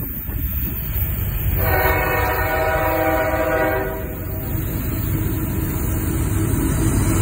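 CSX CW44AC (GE AC4400CW) diesel locomotive sounding its multi-note air horn in one steady blast of about two seconds, starting about a second and a half in. The engine's low rumble then grows louder as the locomotive approaches.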